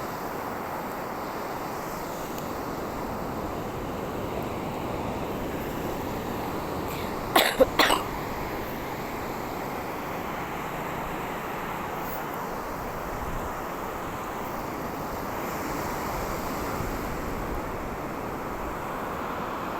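A man coughs three times in one quick, hard burst about seven seconds in, over steady background noise.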